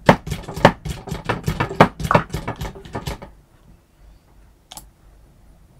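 A quick run of light taps and clicks, several a second for about three seconds, then a single click near the end.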